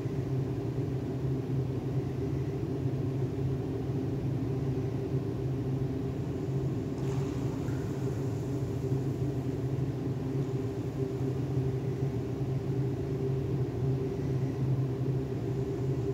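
Steady low machinery hum, a constant drone with a deep tone and a higher one above it.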